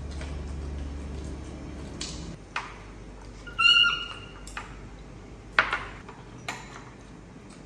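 A baby monkey gives one short, high-pitched squeak about three and a half seconds in. Scattered light clinks of chopsticks and spoons against bowls run around it.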